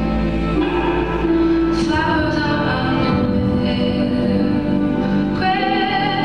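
A song playing: a woman singing held, wavering notes over an instrumental accompaniment.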